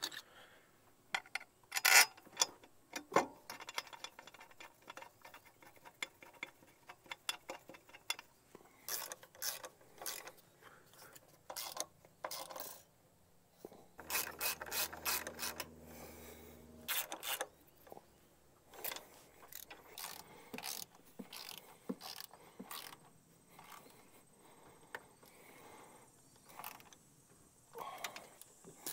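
A ratchet wrench clicks in short runs among knocks and rattles of parts being handled while the air intake tube is fitted to the engine. About halfway through there is a denser run of rapid clicks with a low hum underneath.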